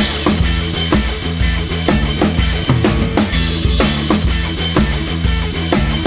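Background music with a steady drum-kit beat of bass drum and snare over a sustained bass line.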